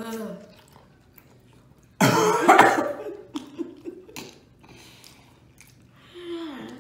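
A person coughs loudly and harshly about two seconds in, trailing into a short throat-clearing: a cough from the burn of the very spicy wing sauce.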